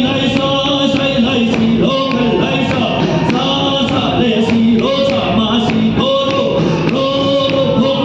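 Group of voices singing a Mizo hymn to a steady beat on the khuang, a traditional Mizo drum, in a large reverberant hall.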